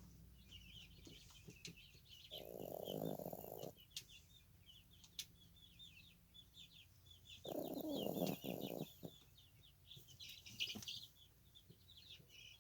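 Chihuahua puppy snoring in its sleep: two long, noisy snores, about two and a half and seven and a half seconds in. Birds chirp high and steadily all through, several calls a second.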